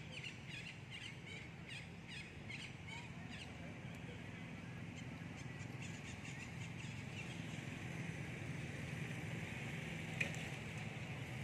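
Outdoor ambience: a quick run of short, high chirps over the first few seconds, over a steady low hum, with one sharp click near the end.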